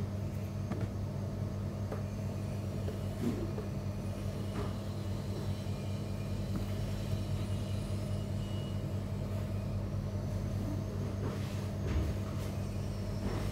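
Steady low hum of background noise, with a few faint soft knocks from a sneaker being handled and turned over.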